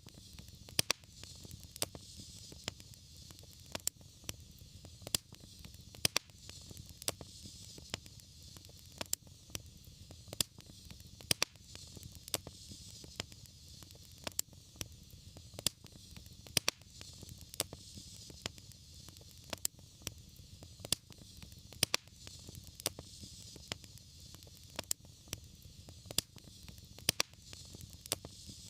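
Wood fire in a fireplace crackling: sharp pops, about one or two a second, over a steady soft hiss and low rumble.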